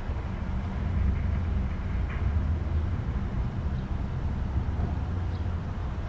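Car engine idling, a steady low rumble.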